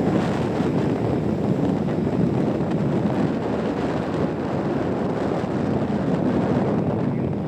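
Steady wind rush on the microphone with road and engine noise from a vehicle driving along a highway.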